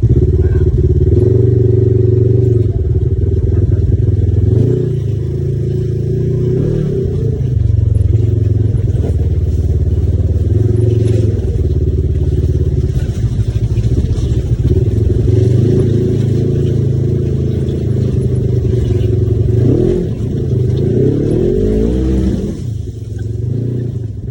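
Side-by-side UTV engine running under way, its pitch rising and falling again and again as the throttle is opened and eased off, easing near the end.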